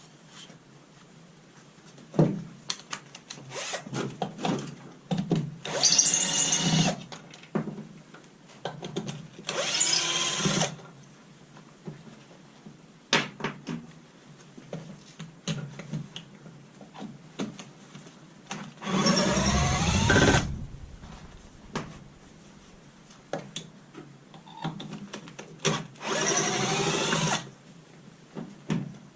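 Power drill backing out the screws of a battery module's front cover, run in four short bursts with a rising whine as it spins up. Clicks and knocks of handling come between the runs.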